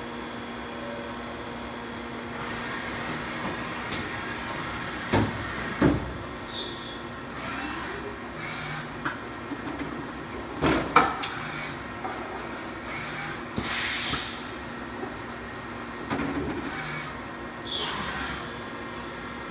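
Mazak VTC-16B vertical machining center running, its column and spindle head traversing along the table. A steady machine hum with a rising-and-falling motor whine, broken by several sudden clanks and short hissing bursts as the sliding steel way covers move.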